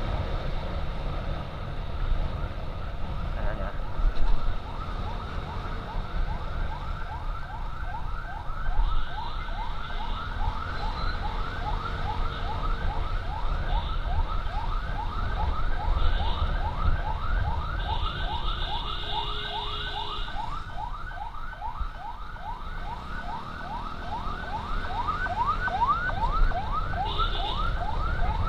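Emergency siren in a fast yelp, rising sweeps about three a second, over the low rumble of wind and engine on a moving motorcycle. A few short, higher steady tones sound over it.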